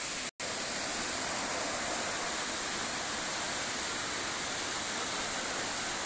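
Steady, even rush of a tall waterfall, about 60 m high, falling hard after heavy rain. The sound drops out for an instant just after the start, then carries on unchanged.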